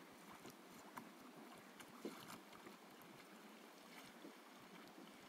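Near silence: faint lapping of lake water with a few soft taps.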